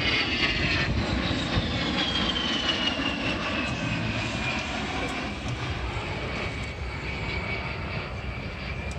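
A-10 Thunderbolt II's twin TF34 turbofan engines flying past, a high whine that falls steadily in pitch as the jet draws away and then holds, over a broad rumble.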